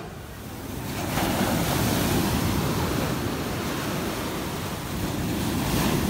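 Sea surf breaking and washing up the beach, the rush of water swelling about a second in and again near the end.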